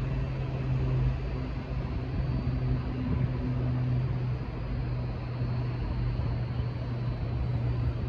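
Diesel train engine running steadily, a low even drone with no horn sounding.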